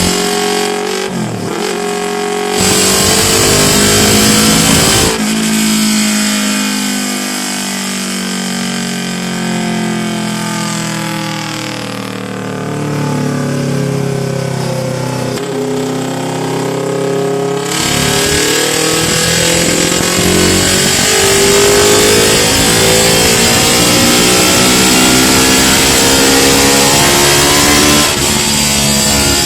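Yamaha R25's parallel-twin engine running hard and revving, its pitch sweeping up and down again and again. It grows louder about two and a half seconds in.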